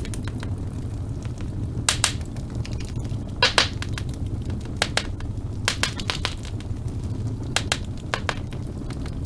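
Wood fire in a fireplace crackling: irregular sharp pops and snaps over a steady low rumble of the burning, with the loudest double pop about a third of the way in.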